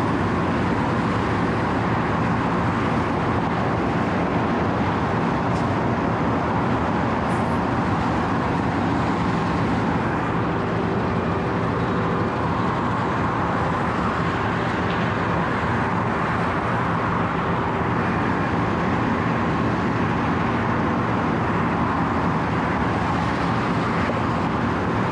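Wirtgen W 120 CFi cold milling machine running steadily, a constant dense machine noise with steady engine tones underneath.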